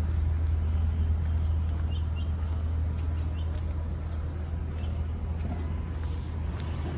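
Steady low rumble of city street traffic, with a few faint short high chirps about two to three seconds in.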